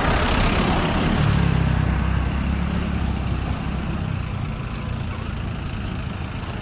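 Motor vehicle engine rumble with road noise, heaviest in the first few seconds and easing a little toward the end.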